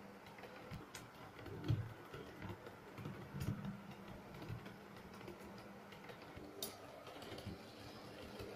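Model diesel multiple units running on layout track: light, irregular clicking of wheels over rail joints over a faint steady hum.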